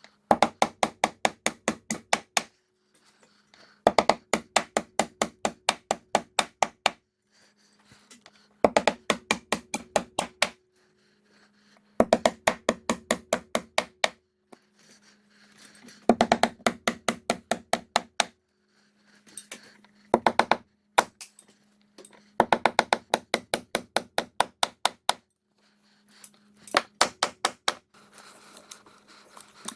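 Impact driver running in repeated bursts of two to three seconds, each a fast rattle of impacts several times a second, with short pauses between, typical of driving screws or lag bolts into a ledger board. A steady low hum runs underneath.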